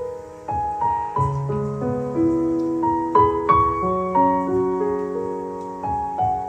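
Background piano music: single notes and chords struck one after another, each ringing on under the next.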